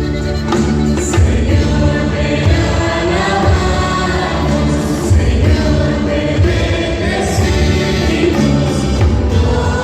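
Choir singing a Spanish-language Catholic song of praise over instrumental backing, with steady low notes.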